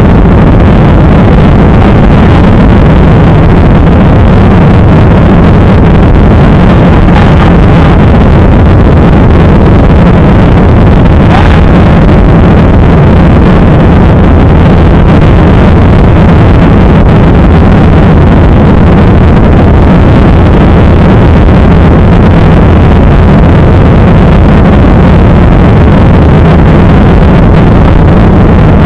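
Airliner engines at high power heard from inside the cabin: a loud, steady roar with a low hum, so loud that it overloads the recording.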